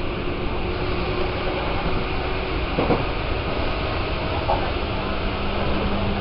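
Hanshin Railway electric train running along the track, heard from the front of the car: a steady rumble of wheels on rails with a hum from the drive, which settles at a lower pitch near the end. A brief knock about three seconds in.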